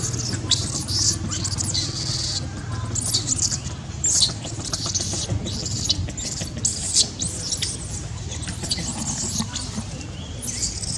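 Baby macaque screaming in distress: a string of shrill, high-pitched squeals, several a second, as an adult grapples with it.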